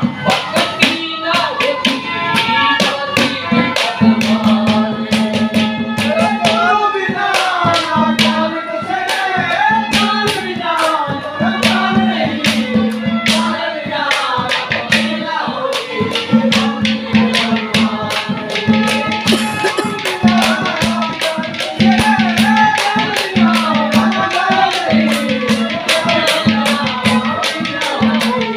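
A man singing a folk song live in a strong voice, over a fast percussion rhythm of sharp drum or jingle strokes. A steady low drone note joins in stretches from about four seconds in.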